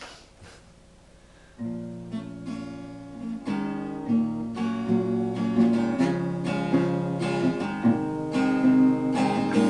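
Acoustic guitar playing the opening chords of a song, starting about a second and a half in after a click and growing louder.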